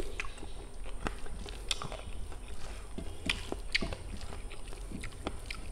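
Eating with the hand: fingers mixing and squeezing rice with chicken gravy on a plate, along with chewing. It comes through as a scatter of short, irregular wet clicks and smacks.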